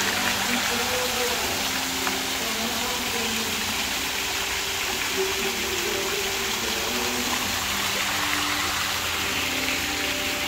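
A steady rushing noise like running water, with soft melodic music notes underneath.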